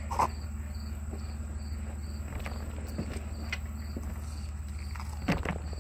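A cricket chirping steadily, about two or three chirps a second, over a low hum. A few faint clicks and squishes come from slime being mixed by hand, the strongest about five seconds in.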